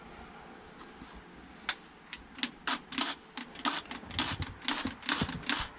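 A run of sharp clicks, coming faster and closer together from about halfway in, as the LYNXX 40V cordless chainsaw's trigger is worked again and again and the saw won't run with its chain on.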